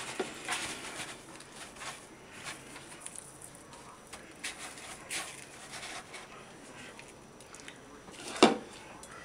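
Hands pressing zucchini slices into a bowl of cracker crumbs and setting them on a paper-towel-lined plate: scattered soft rustling and crunching of the dry crumbs, with one louder sharp knock near the end.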